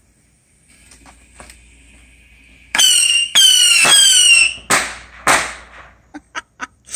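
Bottle rockets going off in a pickle jar: a faint fizzing fuse, then two shrill whistles that slide slightly down in pitch, followed by two sharp bangs about half a second apart and a few small pops near the end.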